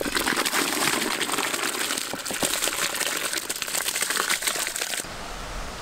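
Soaked raw rice tipped from a bowl into a pot of boiling water: a dense crackling, hissing patter of grains sliding off the bowl and splashing into the water, which stops suddenly about five seconds in.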